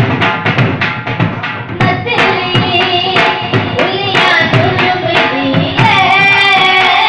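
Dhol drumming in a fast, steady beat; about two seconds in, a harmonium and a girl's singing voice come in over the drum.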